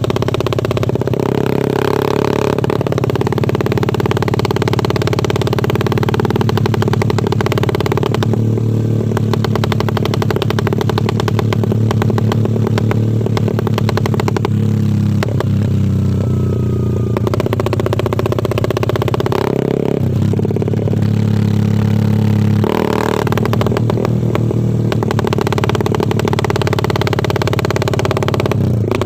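Honda Sonic 150R motorcycle's single-cylinder engine running with a rapid, choppy exhaust pulse likened to a helicopter. The engine speed shifts up and down several times.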